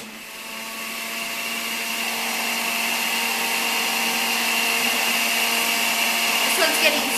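Electric centrifugal juicer running with a steady high whine while carrot and apple pieces are pushed down its feed chute against the spinning cutter; it grows louder over the first two seconds. A few short knocks near the end.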